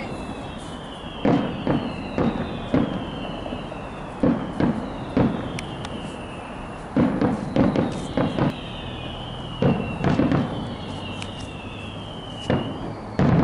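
Aerial fireworks display: shells bursting with sharp booms at uneven intervals, often two or three in quick succession, over several whistles that fall in pitch.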